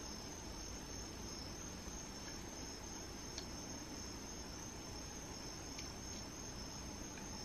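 Faint, steady chorus of crickets, a constant high-pitched trilling over low background hiss, with a few faint ticks.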